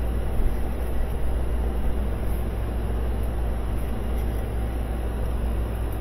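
Steady low rumble, with a few faint metallic clinks as combination wrenches are handled and tried on a bolt head.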